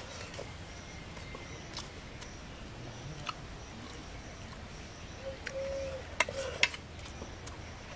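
Sounds of eating rice by hand from a metal plate: a few sharp smacks and clicks, the loudest two close together a little over six seconds in. A dove coos briefly in the background shortly before them.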